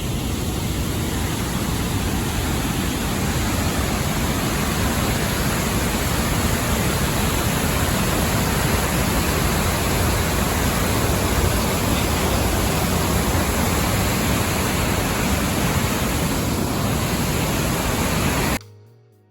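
Sogi Falls, a wide waterfall on a river, giving a loud, steady roar of rushing water that starts suddenly and cuts off near the end.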